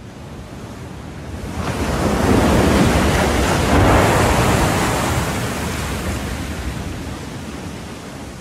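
Rough sea surf breaking on a beach. It swells to its loudest a couple of seconds in and then slowly dies away.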